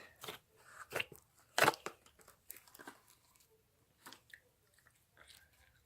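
Hands opening a plastic slime container and pulling slime apart: a few sharp clicks and sticky crackles in the first two seconds, the loudest about a second and a half in, then fainter scattered handling noises.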